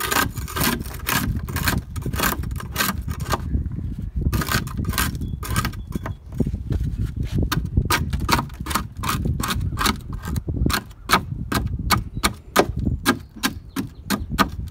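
Hand scraper chipping barnacles off a fibreglass boat seat: quick, irregular scraping and cracking strokes, several a second, over a steady low rumble.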